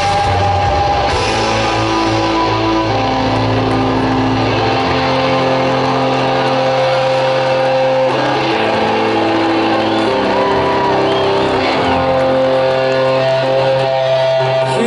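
Live rock band playing through a festival PA: amplified guitars holding long chords that change every one to three seconds.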